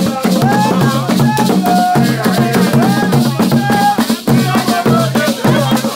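Music with drums and shakers keeping a dense, steady rhythm under a melody line.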